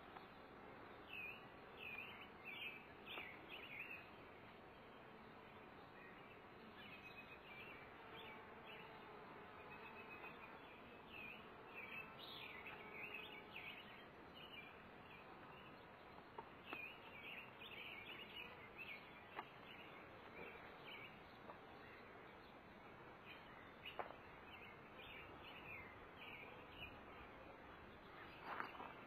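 Faint outdoor ambience: small birds chirping in short bursts over a low hiss, with a faint buzz of honeybees from an open brood frame. A few light clicks come from handling the frame and wire cage.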